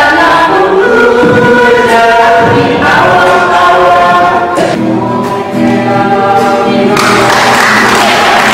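Choir singing: several voices hold long sustained notes that move to new chords in steps. A wash of noise joins them near the end.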